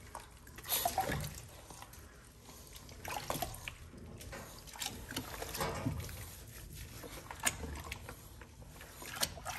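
Hands scrubbing a small wet puppy in a plastic tub of soapy water: irregular light splashes and drips of water, with a few louder sloshes.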